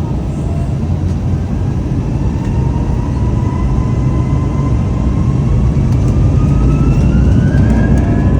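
Airbus A320's jet engines spooling up for takeoff: a heavy rumble with a whine that rises slowly in pitch, growing louder throughout.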